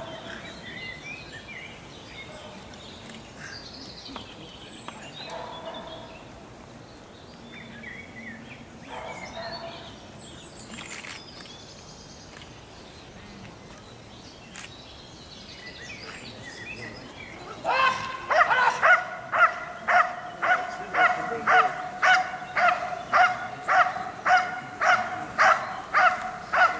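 Belgian Malinois barking steadily at a helper who stands still, about two sharp barks a second, breaking out about two-thirds of the way in. This is the hold-and-bark guarding behaviour, the dog pinning the helper by barking.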